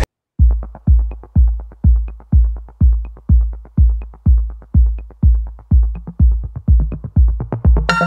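Electronic dance music backing track: after a brief silence, a steady drum-machine kick about two beats a second with light ticks over it.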